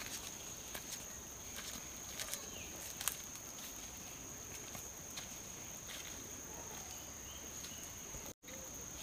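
Footsteps of sandals on a dirt path, with sharp taps spaced close together at first and then thinning out as the walker moves away. A steady high-pitched insect drone runs underneath, and the sound cuts out for an instant near the end.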